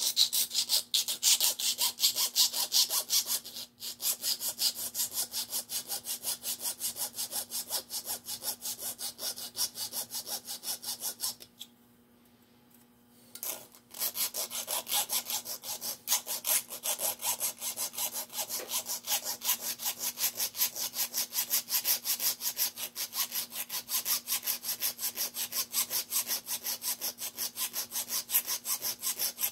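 Flat hand file scraping back and forth across metal in quick strokes, about two to three a second, with a pause of about two seconds partway through. A faint steady hum runs underneath.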